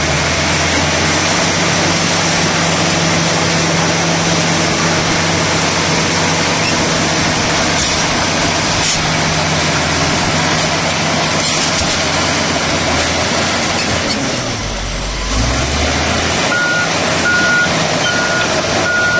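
A bulldozer's diesel engine runs steadily under heavy mechanical noise. About fifteen seconds in, the engine note dips and then rises again. Shortly after, a reverse alarm starts beeping about twice a second as the machine backs up.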